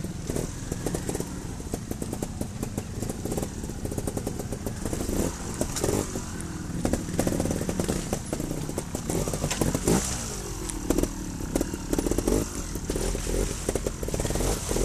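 Trials motorcycle engine running at low speed and revving up and down in short blips, with stones clicking and clattering under the tyres on rocky ground.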